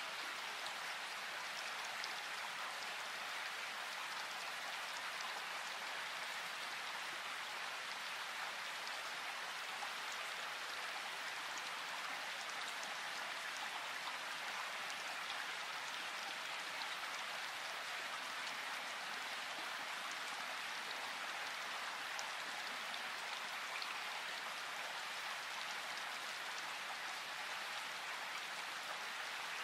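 Steady rain falling, an even patter of many drops that never lets up or changes.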